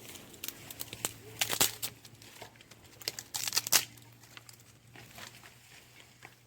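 Crinkling and rustling from something being handled by hand, in short clusters of crackles with the loudest bursts about one and a half and three and a half seconds in.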